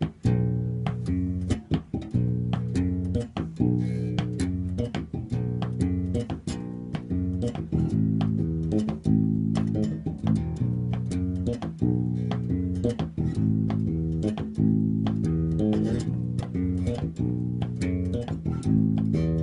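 Electric bass played fingerstyle in a flamenco rhythm: a steady run of plucked low notes with sharp attacks, several a second.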